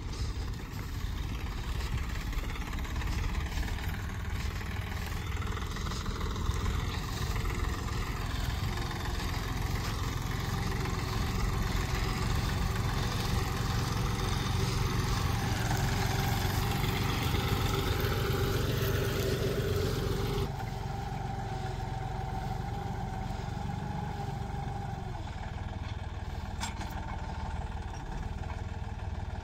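Tractor diesel engine running steadily under load. Its note rises and swells in the second half, then the sound changes abruptly to a quieter, steadier engine note.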